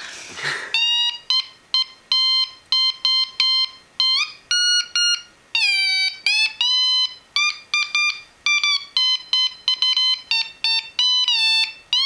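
Homemade Morse code oscillator's buzzer playing a short tune: a quick string of buzzy high beeps, the pitch stepped up and down and now and then slid by turning the oscillator's frequency pot.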